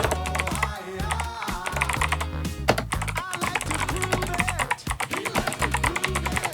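Typing on the 8BitDo Retro mechanical keyboard: a quick, uneven run of key clicks throughout, over background music with a repeating bass line.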